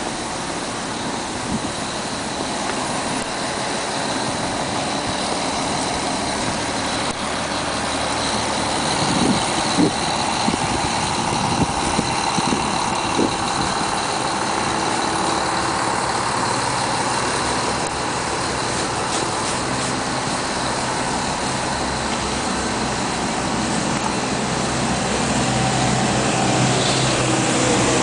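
Motor vehicle engine running amid steady street noise, with a few short knocks partway through and a low engine hum growing louder near the end.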